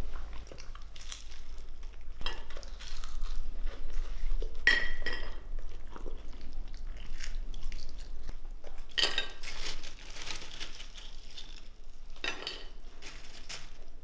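Cutlery and plates clinking and knocking at the table during a meal, in scattered short strikes, with one ringing clink about five seconds in and busier bursts of clatter later on.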